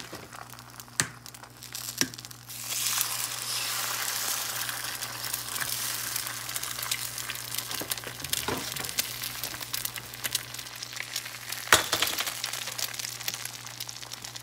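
Eggs frying in a skillet: a steady crackling sizzle with many small pops, which swells about two and a half seconds in as a second egg goes into the pan. Two sharp taps come just before it, as the egg is cracked, and a single louder click comes near the end.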